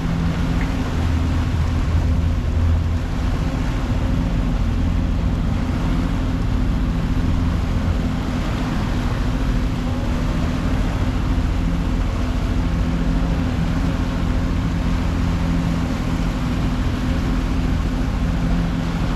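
A motorboat's engine running steadily underway, with the rush of wind and water over it.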